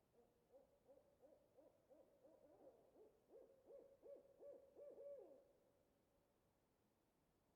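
Owl hooting faintly: a quick series of about fifteen hoots that grows louder, the last few sliding down in pitch, stopping about five and a half seconds in.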